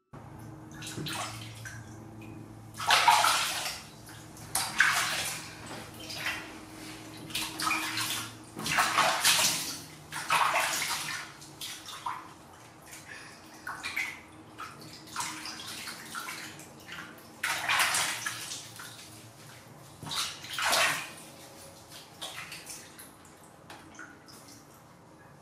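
Water splashing and sloshing in a plastic basin of soapy water as hands wash a kitten, in irregular splashes every second or two with quieter stretches between.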